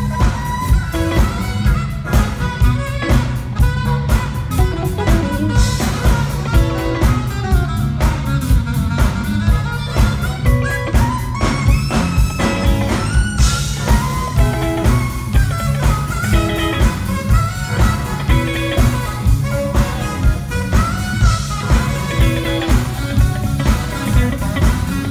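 Live band playing: saxophones carry the melody over drums and electric bass guitar, with a steady beat.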